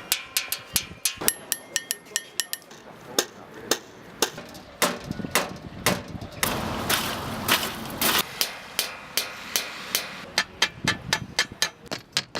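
A rapid, irregular run of sharp clinks and knocks, some ringing briefly like struck metal or glass, with a hiss rising about six seconds in and fading out by about eight seconds.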